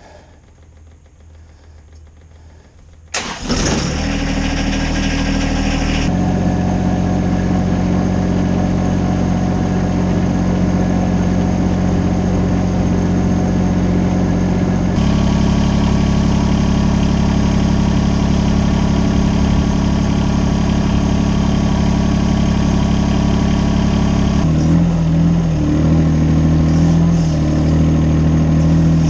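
An engine cranks and starts about three seconds in, then runs steadily, stepping to a different running speed a few times.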